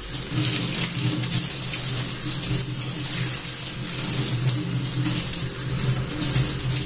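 Kitchen tap running steadily, the water splashing over a keyboard's silicone rubber-dome sheet and into a stainless steel sink as the sheet is rinsed by hand under the stream.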